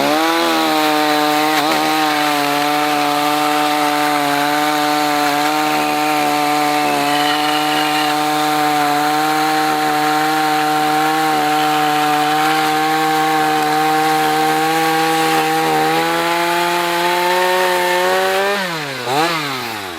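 Small two-stroke chainsaw revved up and held at full throttle, cutting through a log at a steady pitch. Near the end the throttle is released, the engine revs down, blips once and drops back toward idle.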